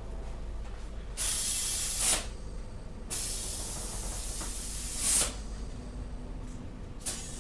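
Compressed air hissing from an air chuck into the valve stem of a small lawn-tractor tire: a burst of about a second, a longer one of about two seconds, each ending in a louder spurt, and a short burst near the end, over a steady low hum.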